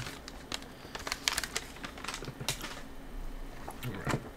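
Irregular clicks, taps and light crinkles of snack packaging and the snack box being handled, thickest about a second and a half in.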